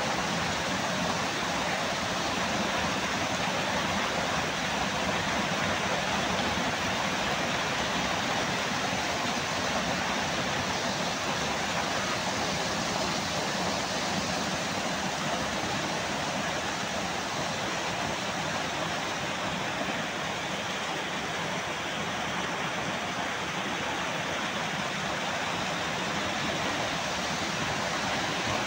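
Small waterfall: a sheet of water falling over a rock ledge and splashing into a churning pool, a steady, even rush of water recorded close up.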